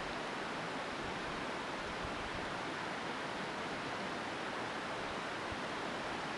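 Steady, even rush of a fast-flowing creek.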